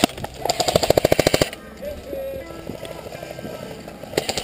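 Airsoft rifle firing on full auto: a burst of rapid, evenly spaced shots, about a dozen a second, lasting about a second, then a second burst starting near the end.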